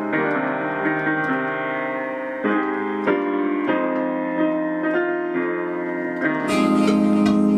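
Keyboard playing piano-sound chords, a new chord roughly every second. About six seconds in the sound fills out and grows louder.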